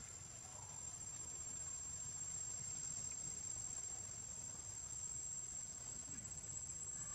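Steady, high-pitched drone of insects, one unbroken tone with no pauses, with a faint low rumble beneath.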